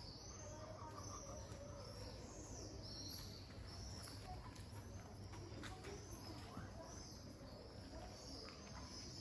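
Faint outdoor ambience: short high-pitched chirps repeating about twice a second over a low steady hum.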